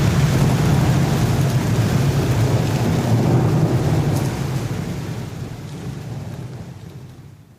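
Rain-and-thunder sound effect: a steady rush of rain over a low rolling rumble, fading out gradually to silence at the end.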